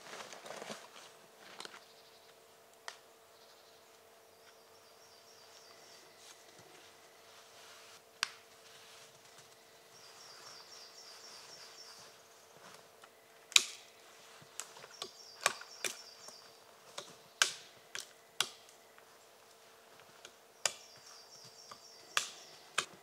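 Dry twigs being snapped off a spruce trunk by hand: a string of sharp, irregular cracks, most of them in the second half. A small bird gives a short high trill that comes back every few seconds.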